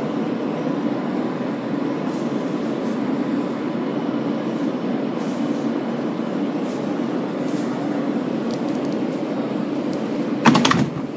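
Interior of an R143 subway car drawing to a stop at an elevated station, with a steady hum from the car. About ten seconds in comes a sudden, short, loud burst of noise.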